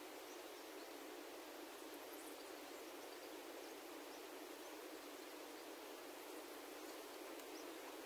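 Faint steady outdoor hiss, with a few faint, brief high chirps scattered through it.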